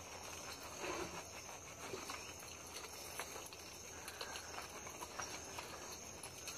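Faint wet rubbing and squishing as hands work lather into a soaked dog's fur, with scattered small clicks and pats.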